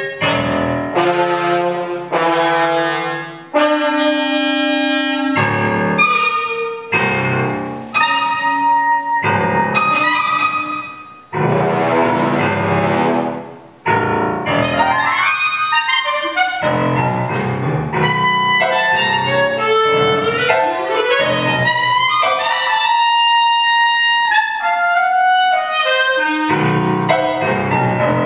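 Live chamber trio of clarinet, French horn and piano playing contemporary concert music. In the first half notes and chords sound and are left to ring and fade, several times dying away briefly; in the second half the lines move faster and overlap.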